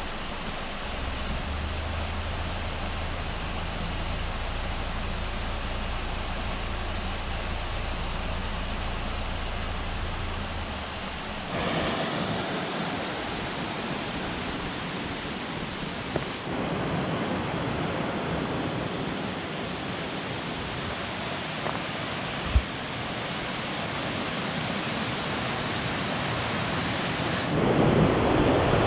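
Steady rushing of a mountain stream and waterfall, changing abruptly a few times as shots change. For the first third, a steady high whine and a low hum sit over it, and there is a single short knock about two-thirds of the way through.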